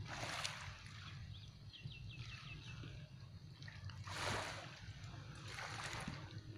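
Harbour water lapping and sloshing against moored boat hulls, swelling up a few times, over a low steady rumble.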